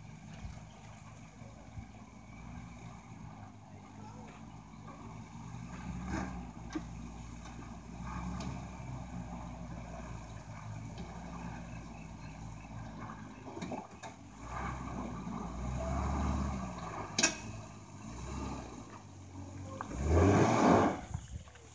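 Four-wheel-drive's engine pulling at low revs as it crawls up a steep, rutted dirt track, working harder from about two-thirds of the way in. There is a single sharp knock, then near the end the engine revs hard in a loud burst.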